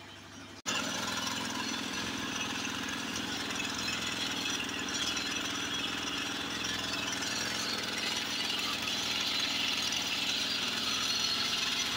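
Portable engine-driven water pump running steadily, pumping floodwater out. It cuts in suddenly about half a second in.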